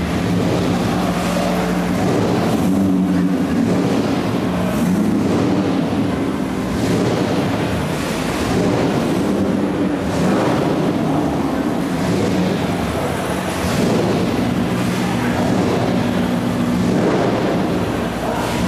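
Car engines idling inside a large hall, their note shifting slightly now and then; near the end a red Chevrolet Corvette's V8 pulls away at low speed.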